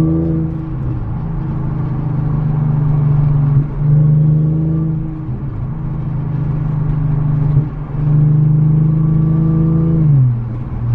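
Audi S5's supercharged 3.0 V6, Stage 2 tuned with an X-pipe and muffler delete, pulling hard at a steady engine speed. It breaks off briefly twice, like quick gear changes, and the revs fall away near the end.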